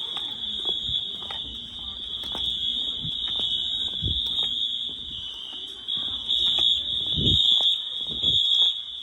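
Several Wheelock MT multitone fire alarm horns sounding at once, each on a different coding pattern. A steady high horn tone overlaps with horns pulsing on and off about twice a second, so the patterns clash.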